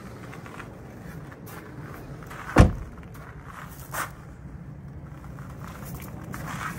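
A Land Rover Defender 110 door shutting with one solid thunk about two and a half seconds in, followed by a lighter click about a second and a half later, with footsteps on gravel.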